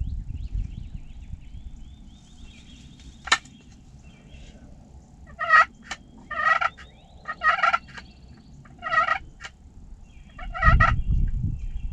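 Wild turkey gobbling: five loud, rattling calls about a second apart, with a sharp click a few seconds before them. Songbirds chirp faintly in the background, and wind gusts rumble on the microphone near the start and near the end.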